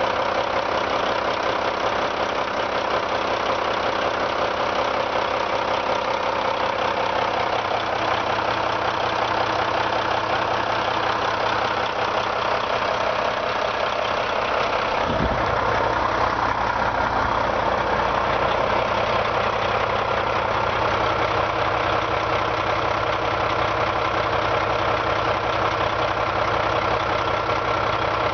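2008 Volvo VNM semi truck's Volvo inline-six diesel engine idling steadily. About halfway through there is a brief low thump, and the low rumble is a little stronger after it.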